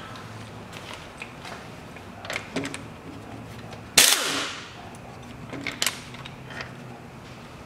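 Pneumatic impact wrench firing one short, loud burst about four seconds in to break loose a lower engine-mount bolt, with scattered metallic clinks from the socket and tools before and after it.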